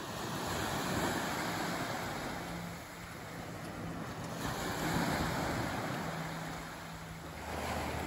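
Small, gentle waves breaking and washing up a sandy beach. The surf swells twice, about a second in and again about five seconds in.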